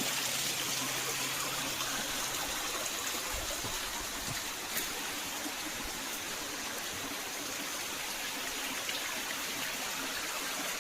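Jungle stream running steadily over rocks, a continuous rush of water.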